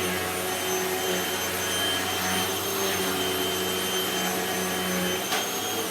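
Hoover WindTunnel T-Series bagless upright vacuum running at full power, a steady motor whine with a hum beneath. A click about five seconds in.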